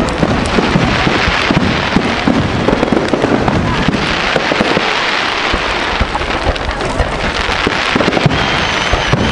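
Fireworks display: a dense, continuous run of crackling pops and bangs, several a second.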